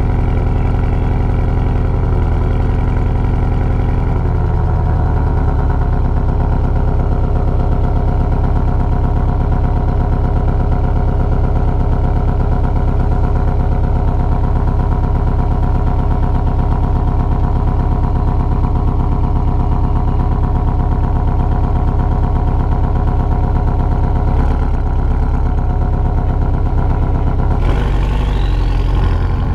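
Porsche 718 Cayman GTS's turbocharged 2.5-litre flat-four running at a steady speed through its stock exhaust, recorded close to the tailpipe. About two seconds before the end the note changes and begins to rise in pitch.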